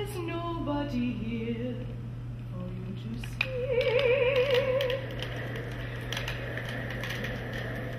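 A voice singing wordless notes: a falling, sliding phrase, then about halfway through a long high note with wide vibrato. A steady low hum runs underneath.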